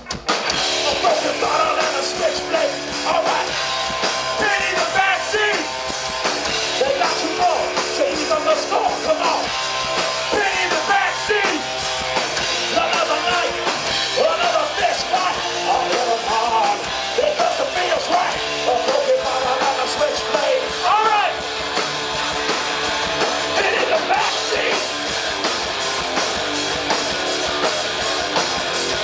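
Rock band playing loud with a singer's voice over it; the music drops briefly at the very start, then runs on.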